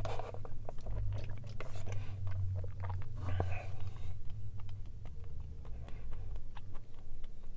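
Close mouth sounds of chewing tapioca pearls from a boba milk tea: many small wet clicks and smacks, with short sips through a wide boba straw.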